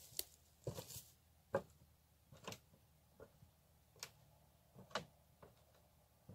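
Faint footsteps of rubber boots on wooden jetty planks: a soft knock on the boards about every second.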